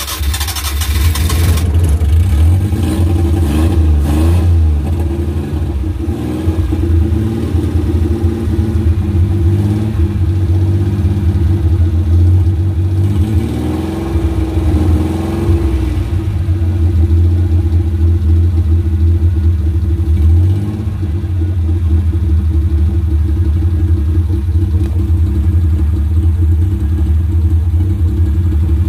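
Suzuki F5A three-cylinder engine of a Multicab running after its ignition spark was restored, with a few revs rising and falling on the throttle. The tank is almost out of gasoline.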